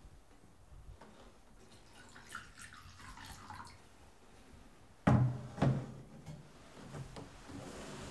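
Wine trickling from a pewter jug into pewter goblets in a thin stream, then two sharp knocks about five seconds in, half a second apart, as pewter is set down on the wooden table, with lighter taps after.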